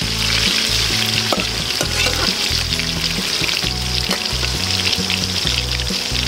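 Chicken liver pieces sizzling steadily in hot oil in a metal pan, stirred with a metal ladle, with a few light clicks of the ladle against the pan.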